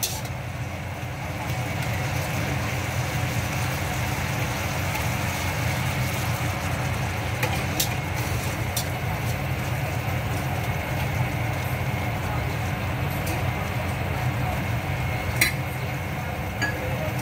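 Stir-frying in a wok: a steady low rumble with a few sharp clicks of the utensil against the pan.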